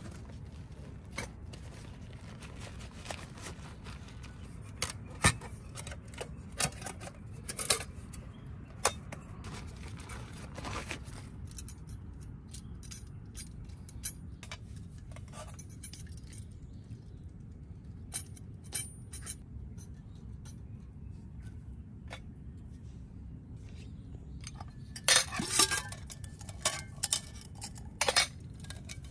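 Camp cookware and utensils clinking and knocking as tea is prepared: scattered single clinks, then a quicker run of them near the end.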